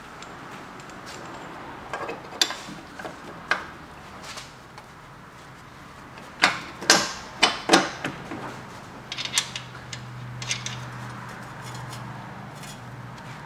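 Metal parts of a 2016 Camaro SS's front suspension clanking and knocking as the steering knuckle is fitted back onto the strut assembly: a few separate knocks, then a cluster of louder clanks about halfway through, then lighter clicks.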